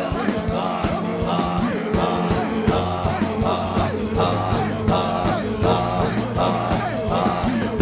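Church worship music with a steady drum beat, with the congregation's many voices praying aloud over it.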